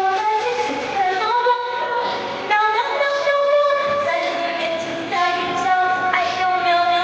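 A woman singing a song over backing music, in long held notes that slide from one pitch to the next.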